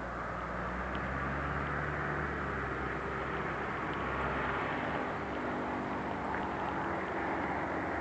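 Steady city traffic noise: a continuous wash of passing vehicles with a low engine hum that changes pitch about halfway through.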